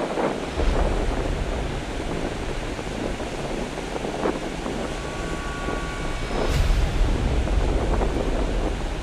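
Ocean surf breaking and washing up a sandy beach, with wind buffeting the microphone in gusts, heaviest about half a second in and again from about two-thirds of the way through.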